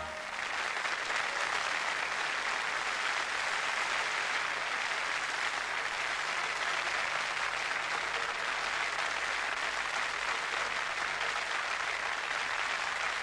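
Theatre audience applauding: dense, even clapping that holds steady throughout.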